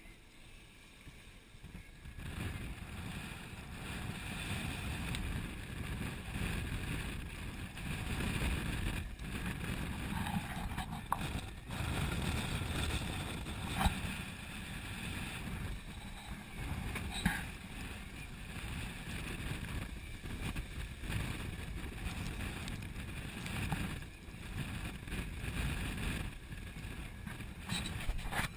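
Gale-force wind of 35–45 knots buffeting the microphone over the rush and splash of breaking waves along a sailing yacht's hull, picking up about two seconds in. A couple of sharp knocks stand out partway through.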